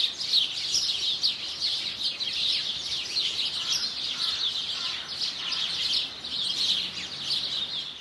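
Small songbirds chirping and twittering, many short high notes overlapping in a continuous chorus that fades out at the very end.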